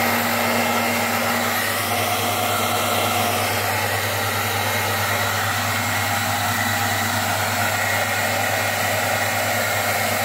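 Steady, loud whirring noise of a running electric appliance motor, unchanging throughout.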